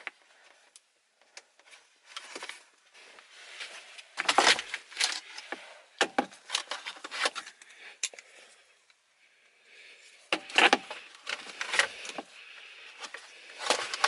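Irregular clicks, knocks and rattles of hands and tools working on the plastic shifter trim of a Nissan 350Z's center console. It comes in bursts of clatter, loudest twice, with a quieter stretch between.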